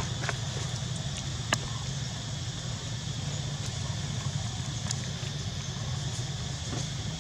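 Steady outdoor background noise: a constant low rumble under an even hiss, with a few sharp clicks, the clearest about a second and a half in.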